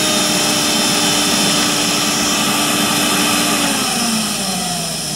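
Old Electrolux vacuum cleaner motor running with its hose sealed onto a vacuum tester's test port, during a suction reading. About four seconds in, its pitch and loudness begin to fall.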